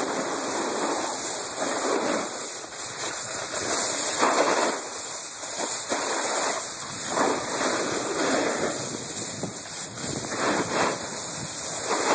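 Continuous hiss and scrape of a snowboard sliding over spring snow, mixed with wind rushing over the microphone. It swells and eases every second or two as the board turns.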